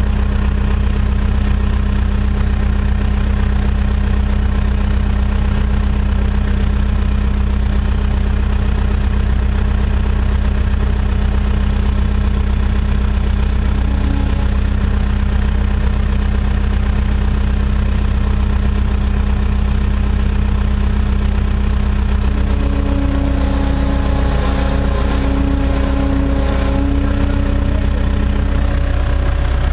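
A work machine's engine idling steadily with a low, even drone. About three-quarters of the way through, a higher whine and a few clicks join in.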